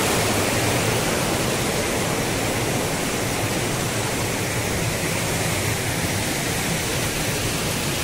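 Steady rush of water from a waterfall and a rocky stream.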